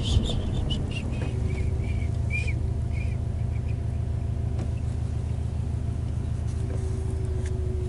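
A car's engine and road noise heard from inside the cabin: a steady low rumble with a faint steady hum above it, and a few faint short chirps about one to three seconds in.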